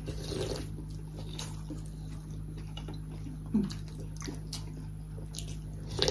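Mealtime eating sounds: noodles slurped and chewed, with scattered light clicks of forks and spoons on plates and a sharper clink near the end, over a steady low hum.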